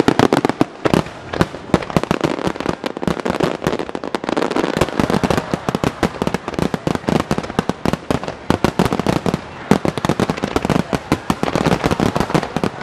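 Fireworks display: a dense, continuous barrage of shell bursts, many sharp bangs a second with crackling between them.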